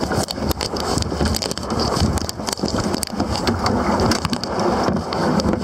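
Wind buffeting the camera's microphone, with rustling and sharp knocks from the camera being handled. The sound cuts off abruptly near the end.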